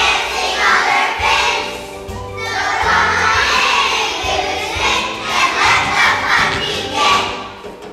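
Young children's choir singing together in unison over instrumental backing music, in phrases with a short break about two seconds in.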